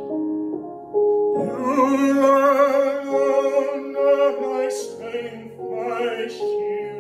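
A man singing with wide vibrato over a solo piano accompaniment. He holds one long note from about a second in, then sings a shorter phrase near the end.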